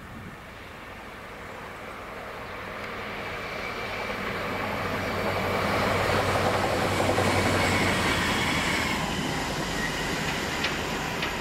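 Convoy of Class 66 diesel locomotives running light past, their two-stroke V12 engine note and wheel-on-rail noise building to a peak about six to eight seconds in, then fading as they go away.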